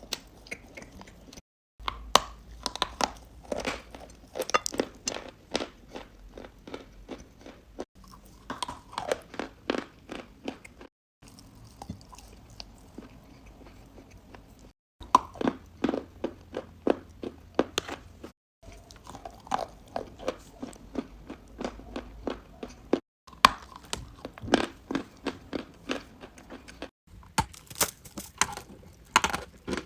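A person biting and chewing crunchy, brittle chunks close to the microphone, most likely chalk or clay. It comes as a series of short crunch-and-chew passages, each opening with loud sharp crunches that thin out into softer chewing, and each cut off abruptly by the next.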